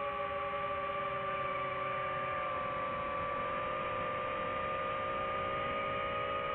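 DJI FPV quadcopter's motors and propellers whining in flight: several steady tones together, drifting slightly in pitch.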